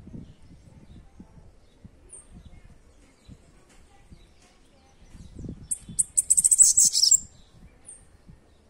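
Bananaquit singing: one short, very high, rapid buzzy song burst about six seconds in, with single high chip notes a few seconds before and just after it.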